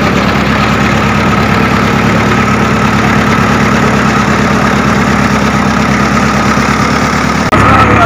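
Old road roller's diesel engine running steadily with an even chugging beat while the roller drives, with a sudden break near the end.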